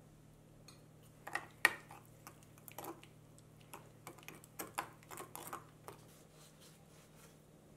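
Metal spoon stirring a wet sauce of minced green onion and seasonings in a glass bowl, clinking against the glass in a run of irregular taps. The loudest clink comes about a second and a half in, and the tapping stops about six seconds in.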